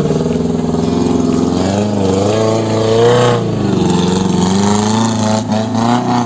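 Off-road vehicle's engine running hard, its revs rising and falling again and again, as a vehicle works its way along a rough trail.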